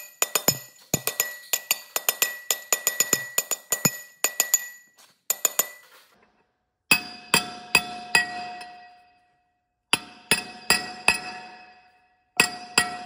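Hand sledge hammering a chilled steel wheel-bearing race into a John Deere 8420 axle carrier: sharp, ringing metal-on-metal blows. For about the first six seconds they come quickly, about six a second, with a high ring. After a brief pause come three groups of four or five blows with a lower ring.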